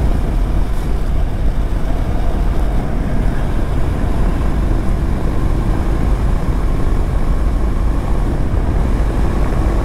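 Honda motorcycle cruising steadily at about 90 km/h, heard through a lavalier mic inside a closed-visor helmet: a loud, unbroken low rumble of wind, engine and road noise.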